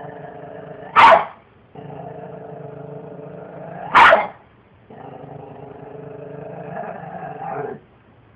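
A dog barking sharply twice, about a second in and again about four seconds in, with long, steady, low growls running between and after the barks.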